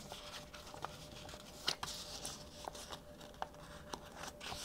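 A sheet of paper being folded and creased by hand on a wooden table: soft rustling with scattered light clicks, and one sharper crackle a little under two seconds in.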